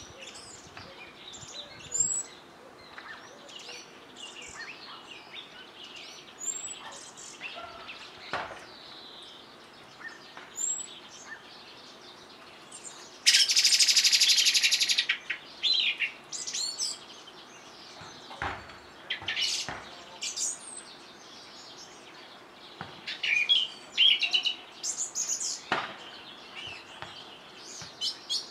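Small birds chirping and twittering on and off, with a few sharp knocks as a common blackbird pecks at a walnut shell on the ground. About halfway through comes a loud buzzy rattle lasting about two seconds.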